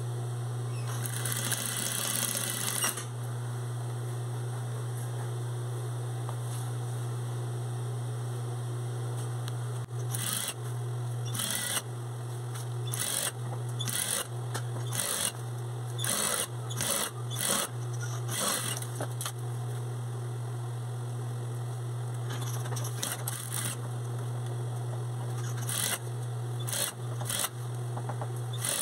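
Industrial sewing machine stitching a hem in short runs over a steady low hum: a longer run about a second in, then a string of brief starts and stops from about ten seconds in and again near the end.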